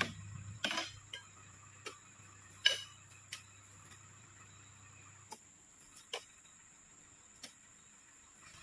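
Scattered sharp knocks and clicks, about eight in all and the loudest a little under three seconds in, as a metal-tipped harvesting pole jabs, hooks and shifts oil palm fruit bunches. A low hum runs under the first five seconds.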